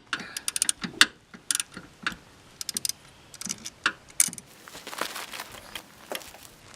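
Socket ratchet clicking in short runs of rapid clicks as it is worked back and forth on a motor mount bolt, with a few sharper knocks in between.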